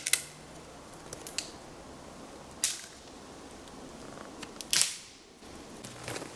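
Sharp cracks of wood being handled for a campfire, struck off a steady quiet background. There are three loud ones, near the start, about halfway and about three quarters of the way in, with a few lighter clicks between.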